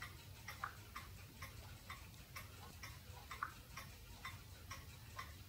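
Typing on a smartphone's touchscreen keyboard: a run of faint, irregular clicks, about three or four a second.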